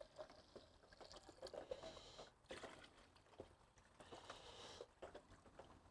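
Water poured from a plastic jug into a stock pot of meat and marinade: faint trickling and splashing, with a short break about two seconds in.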